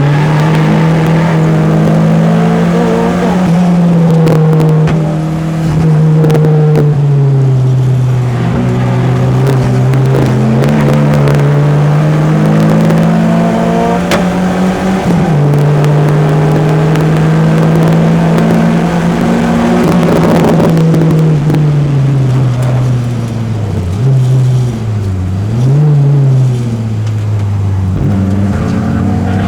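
Peugeot 205's four-cylinder engine under hard driving on a race track, its note climbing and dropping with throttle and gear changes. Near the end the pitch dips sharply and picks up again twice.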